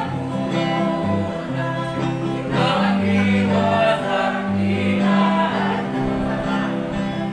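Christian gospel song: a choir singing held notes over instrumental backing with a stepping bass line.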